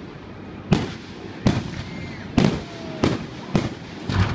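Fireworks display: aerial shells bursting overhead, about six sharp bangs at uneven intervals of half a second to a second, each trailing off briefly.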